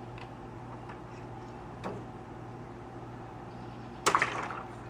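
Water balloons in a metal bowl jostled by a cat's paw: a small click, then about four seconds in a sudden sharp burst of rubbing and knocking that lasts about half a second, over a steady low hum.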